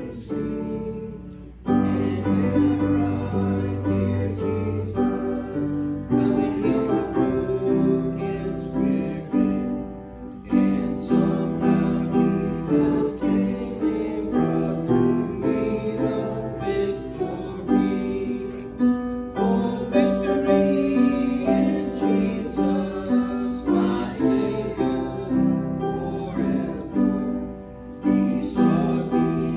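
A hymn being played and sung: sustained chords on an instrument with voices singing along.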